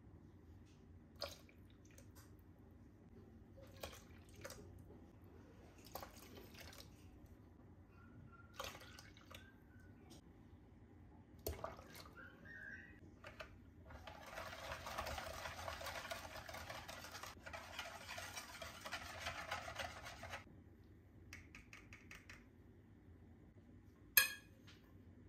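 Liquid poured from a glass into chickpea-flour batter in a plastic bowl, a steady pour lasting about six seconds, with scattered light knocks of a wire whisk and glass against the bowl before it and one sharp knock near the end.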